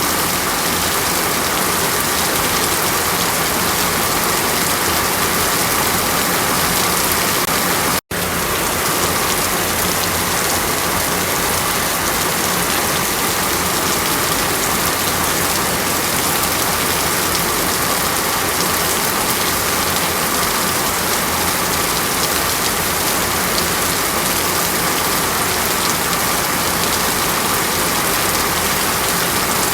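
Steady, dense hiss of falling water, like rain on a surface, with a momentary dropout about eight seconds in.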